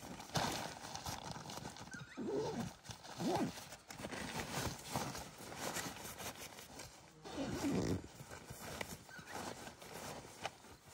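Zipper on a nylon carry bag pulled closed in several rasping strokes, each rising and falling in pitch with the pull, with fabric rustling as the packed bag is squeezed shut.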